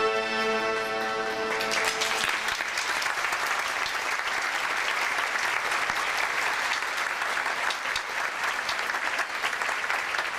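A live Arabic band's final held note rings out and stops about two seconds in, and the theatre audience breaks into steady applause.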